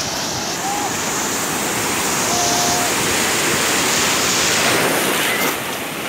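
Small ocean waves breaking and whitewater rushing around the shallows, growing louder through the middle and dropping off near the end.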